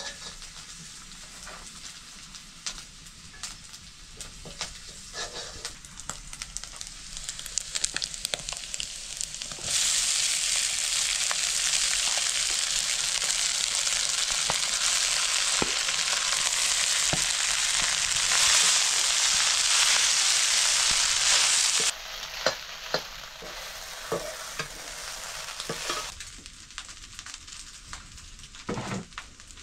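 Fried rice stir-frying in a pan, a utensil scraping and clicking against the pan as it is stirred. About ten seconds in, a loud steady sizzle starts and then drops away suddenly about twelve seconds later, leaving quieter scraping and stirring.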